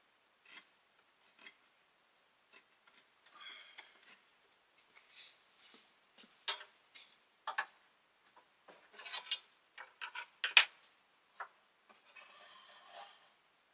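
Scattered light clicks, taps and scraping of wooden pieces and a pencil being handled on a workbench, irregular, with two sharper clicks, one a little past halfway and one about three-quarters through.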